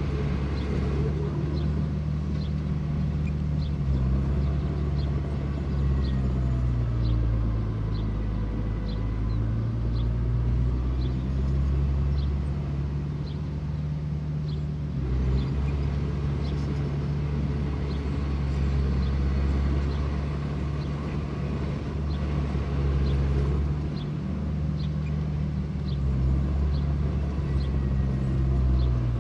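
Heavy diesel earthmoving machinery running, its engine note dipping and rising several times as the load changes. A light tick repeats about once a second.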